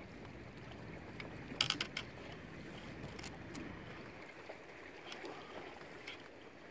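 Canoe moving on calm sea, with a low steady wash of water against the hull. A quick run of sharp knocks about one and a half seconds in is the loudest sound, with a few fainter clicks later.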